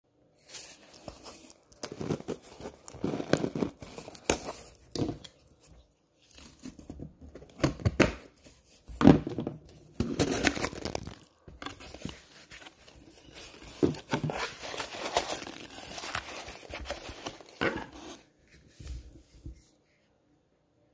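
Cardboard shipping box being torn and pulled open by hand: irregular tearing, crinkling and scraping with sharp knocks, stopping suddenly near the end.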